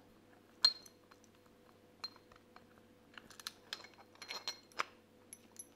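Steel thrust ball bearing rings and a spacer ring clinking lightly against each other as they are handled. One sharper clink comes just under a second in, then a scatter of lighter clinks follows later on.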